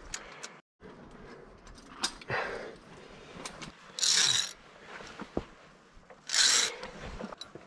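Via ferrata climbing noises: scattered clicks and small scrapes of gear and hands on rock and cable, with two louder scraping rushes about four and six and a half seconds in.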